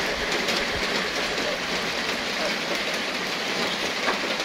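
Heavy rain falling steadily on corrugated metal roofing and foliage, a dense, even hiss.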